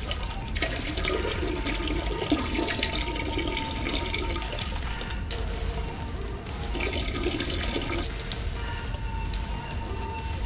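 Steady stream of liquid splashing into a toilet bowl as a person urinates, starting abruptly.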